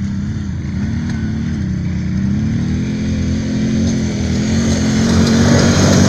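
ATV engine running under throttle, its pitch wavering up and down and growing gradually louder.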